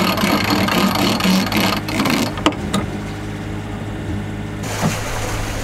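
Sailboat's engine running with a steady low hum, under a rush of wind and water noise that drops away about two seconds in and returns near the end.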